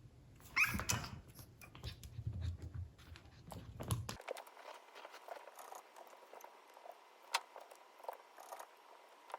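Chihuahua-poodle mix puppy giving a brief high yelp or whine about half a second in, followed by scattered light taps and clicks through the rest.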